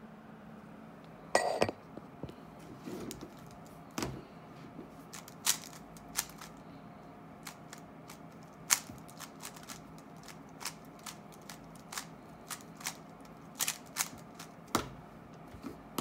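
Rubik's cube being turned fast in a speedsolve: irregular plastic clicking and clacking of the layers, with a louder clatter about a second and a half in and a few sharper knocks near the end.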